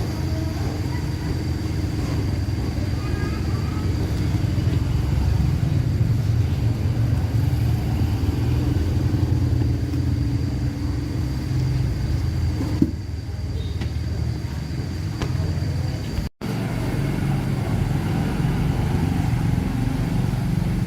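An engine running steadily with a low rumble, dropping out for an instant about sixteen seconds in.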